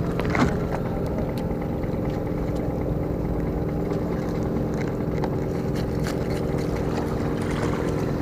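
Boat engine running steadily with an even, droning hum; a brief sharper sound about half a second in.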